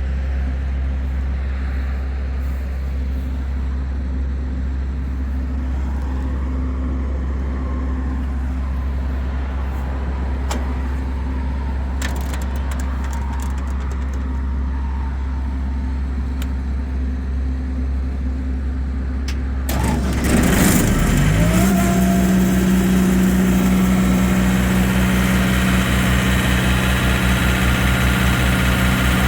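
John Deere 4024T 2.4-litre turbo diesel on a Sullivan 210Q portable air compressor, running at a steady low idle. About two-thirds of the way through it speeds up, its pitch rising, and settles at a higher steady working speed.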